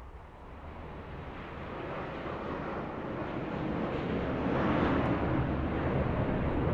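Jet roar of a large four-engine jet transport plane, a steady rushing noise that grows louder as the aircraft approaches.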